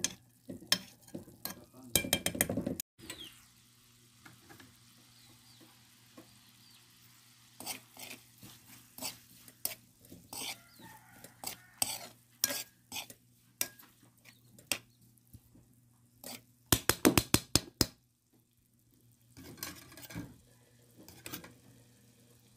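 Metal spoon stirring and scraping browned meat in a metal wok: irregular clinks and scrapes against the pan, with rapid runs of scraping about two seconds in and again near seventeen seconds. Frying meat sizzles faintly between the strokes.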